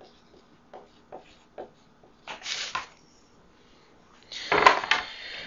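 Marker pen scratching short strokes on paper, then a sheet of paper rustling loudly as it is lifted and held up, with a sharp crinkle about three-quarters of the way in.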